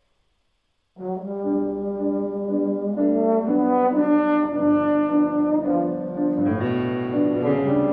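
Slide trombone coming in after about a second of silence and playing a melody of held, changing notes, with piano accompaniment.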